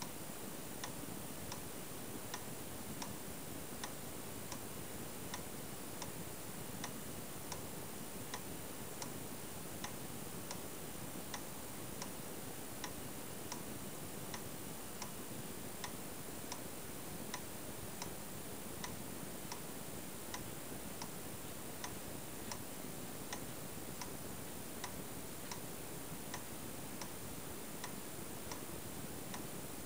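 Siemens & Halske pendulum master clock movement ticking steadily, with evenly spaced ticks a little faster than one per second over a faint steady hiss.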